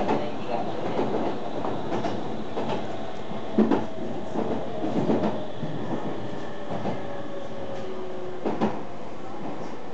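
Meitetsu electric train running on the line, heard from inside the front car: a steady rumble with wheels knocking over rail joints in pairs of clacks, three times. A thin whine slowly falls in pitch through the middle.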